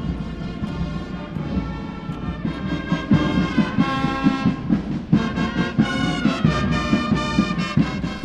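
Military brass band playing a march, with held brass chords over a steady drum beat that grows more prominent from about three seconds in.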